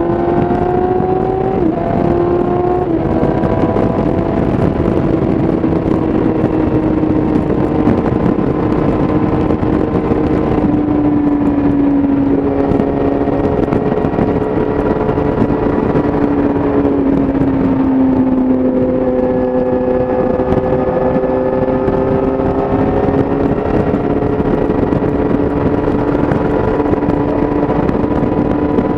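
2017 Yamaha YZF-R6's inline-four engine through an Akrapovic exhaust, revving up and shifting up twice in quick succession in the first few seconds. It then cruises at steady high revs, the pitch sagging slowly in the middle and rising again, with wind rush around it.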